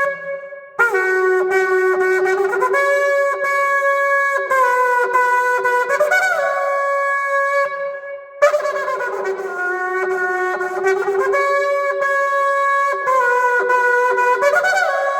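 Shofar blown in two long blasts, each stepping back and forth between a low note and a higher one, with a short breath break about a second in and another around eight seconds.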